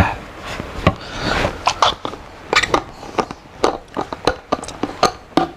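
Handling noise from a clear drinking bottle with a loop cap as it is picked up and opened: a string of sharp clicks and small knocks, with a brief rustle about a second in.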